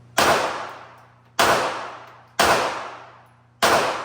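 A gun fired four times at a shooting range, about a second apart, each shot trailing off over roughly a second.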